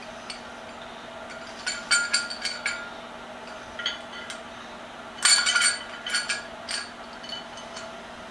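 Light metal clinks and knocks in short clusters, from tools and vise parts being handled and fitted together by hand.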